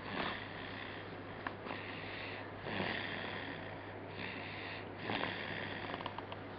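Snoring in sleep: noisy, sniffy breaths in and out, one roughly every second and a half, some with a deeper snort, over a steady low hum.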